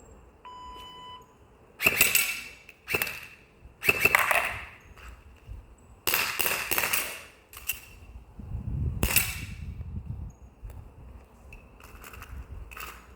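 Airsoft gun firing single shots, about six at irregular intervals, each a sharp crack with a brief tail. A short beep sounds just before the first shot.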